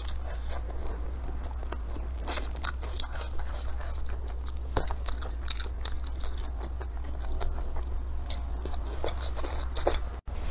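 Close-miked chewing and biting of stir-fried velvet antler mushrooms and rice, with many short wet clicks and crunches, and chopsticks scraping in the plate.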